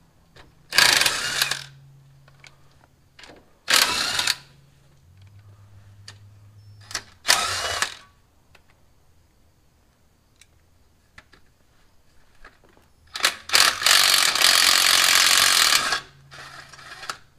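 A 19.2-volt cordless drill spinning a socket to back out the bolts of the clutch-brake access plate on a truck's bell housing. It runs in three short bursts of about a second each, then a longer run of about three seconds near the end.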